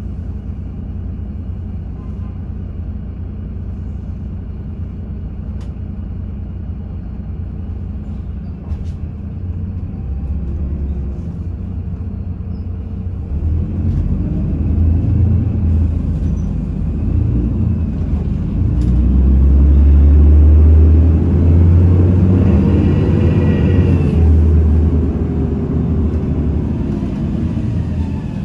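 Bredamenarinibus M240 LS bus engine heard from inside the passenger cabin: a steady low idle while standing, then pulling away about ten seconds in, getting louder, with the engine note rising and then falling as it accelerates.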